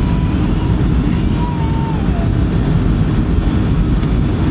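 Steady, loud rumble of a Boeing 757-200's jet engines and rushing air, heard inside the passenger cabin during the approach to land.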